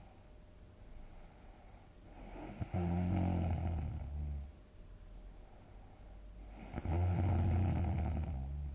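A person snoring heavily: two long, low buzzing snores about four seconds apart, each opening with a sharp click.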